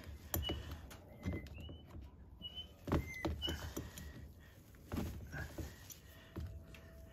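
Pliers gripping and twisting a tie-down wire tight against a root of a potted juniper, making quiet irregular clicks and scrapes every second or so. Short high squeaks come now and then among them.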